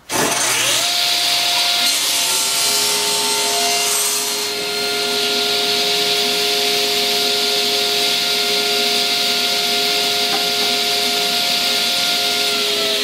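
Table saw switched on and spinning up, its motor tone rising over the first second or two, then running steadily while a maple board is ripped through the blade, with a loud, hissing cutting noise over the motor hum.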